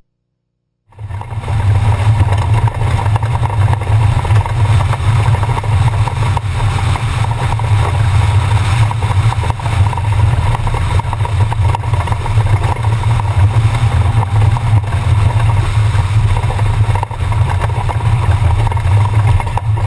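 Jeepspeed desert race Jeep's engine running at steady speed, a continuous low drone with road and wind noise over it. It cuts in about a second in, after a brief silence.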